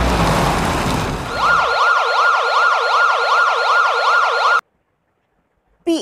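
A heavy truck's engine rumbles and fades in the first two seconds. Then a police siren sound effect wails fast, rising and falling about three times a second, and cuts off suddenly.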